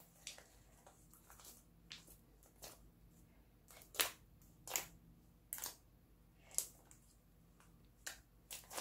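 Pink slime being kneaded, squeezed and stretched by hand, giving irregular wet clicks and pops as it presses and pulls apart, the loudest about four seconds in.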